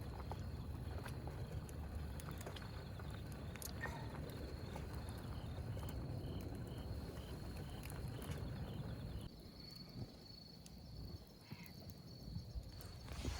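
Outdoor ambience: insects chirping in a steady, even rhythm over a low rumble. The rumble drops away suddenly about nine seconds in.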